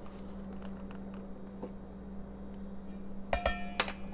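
Faint small clicks of a measuring spoon and spice jar being handled, then, near the end, a metal measuring spoon knocks twice against a stainless steel mixing bowl with a brief ringing clink.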